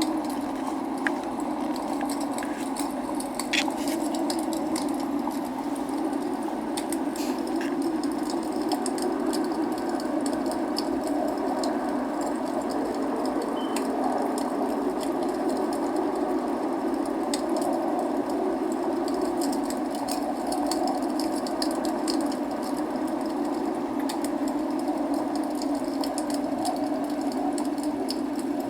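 Log fire crackling, with scattered sharp pops and snaps, over a steady rushing noise of rain.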